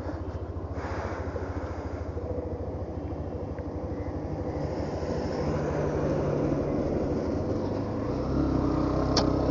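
Motorcycle engine running with a steady low pulse while riding, with road and wind noise on the helmet-mounted action camera's microphone, growing gradually louder.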